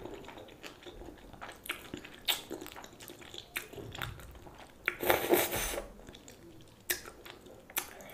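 Close-miked mouth sounds of eating chowmein noodles: wet chewing with many short clicks as the noodles are drawn in and chewed. There is a longer slurp about five seconds in.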